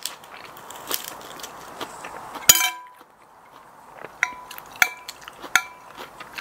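A metal spoon clinking against a plate as food is scooped up. One loud, ringing clink comes about two and a half seconds in, then three lighter clinks about a second apart near the end, with soft crackling of lettuce leaves before them.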